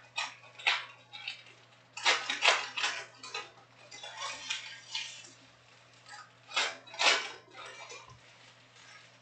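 Panini Prizm soccer-card foil packs being torn open and crinkled by hand while the cards are slid and shuffled against each other. It comes in short irregular rustling bursts, the loudest a cluster about two to three seconds in and another near seven seconds.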